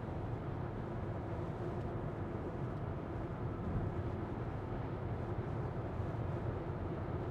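Steady road and tyre noise inside the cabin of a BMW iX1 electric SUV cruising on a motorway, with no engine note.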